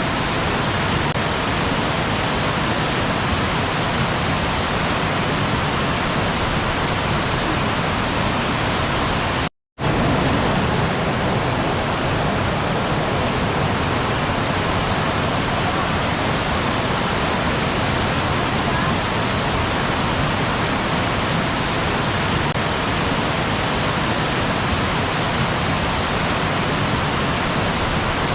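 Waterfall: a steady, even rush of falling water, cutting out to silence for a moment about nine and a half seconds in and then carrying on.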